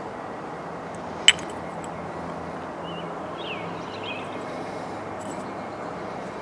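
A single sharp click about a second in, over steady background noise, with a few faint high chirps around the middle.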